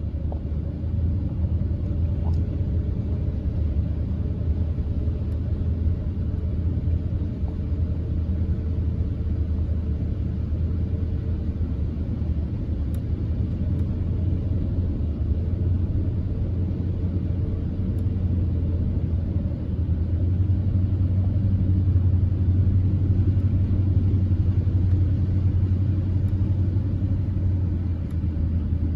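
Steady low rumble of a car driving, heard from inside its cabin, on a road awash with floodwater and rain. The rumble swells a little about two-thirds of the way through.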